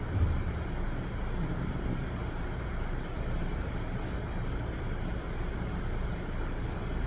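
Steady low rumble of background noise, with one soft low thump just after the start.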